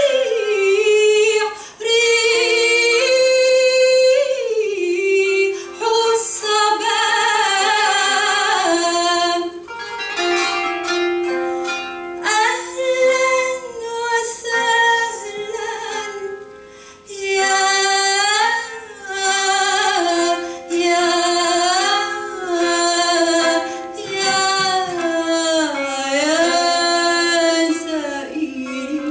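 A woman singing long held notes with gliding, ornamented pitch bends, accompanied by a plucked kanun (qanun, a trapezoid zither).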